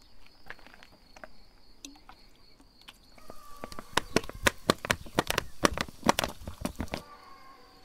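Cola glugging out of a plastic bottle into a motorcycle exhaust pipe: a quick, irregular run of gurgles that starts about three seconds in and stops near the seven-second mark, with a few light clicks before it.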